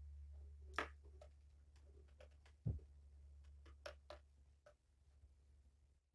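Near silence: a faint low hum with scattered light clicks and taps, including a sharp tick just under a second in and a soft thump nearly three seconds in.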